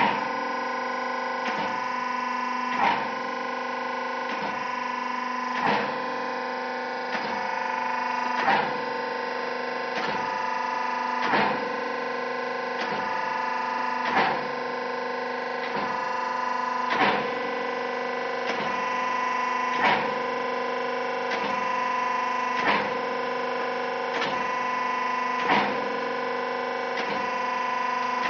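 Hydraulic YY-80B date and dried-fruit cubing machine running with a steady whine, its press head knocking about every one and a half seconds as it strokes down to cut dates into cubes, every other knock louder.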